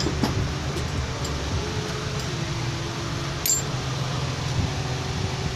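Steady mechanical hum, with one light metallic clink about three and a half seconds in.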